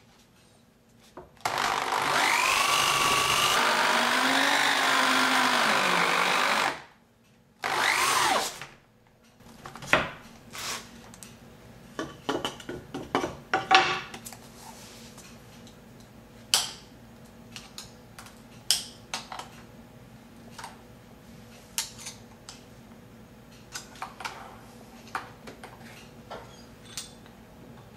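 Corded drill with a hole saw cutting into a wooden board: the motor runs for about five seconds, its pitch sagging and recovering under load, then runs again briefly. After that come scattered clicks and knocks as the cut wooden plug is worked out of the hole saw.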